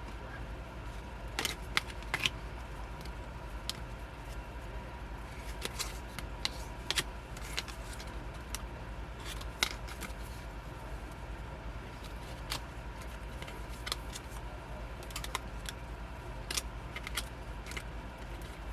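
Album contents being handled: small plastic and paper items, a bag and a keychain, giving scattered clicks and crinkles over a steady low hum.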